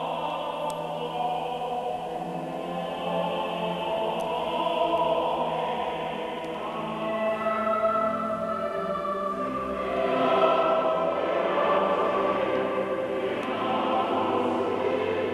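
Background choral music: a choir singing slow, held notes.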